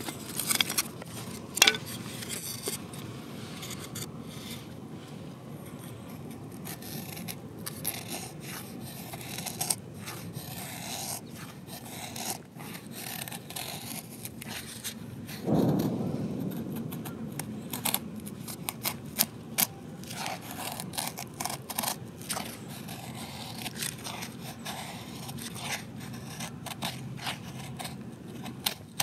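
A fixed-blade knife shaving thin curls off a pale softwood stick to make a feather stick: a run of short, crisp scrapes, one stroke after another. A dull thump about halfway through.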